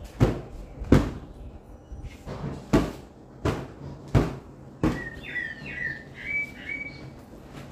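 Sofa cushions being picked up, slapped and dropped onto a fabric sofa: a series of sharp thumps, about six in the first five seconds. A few high whistled chirps follow about five seconds in.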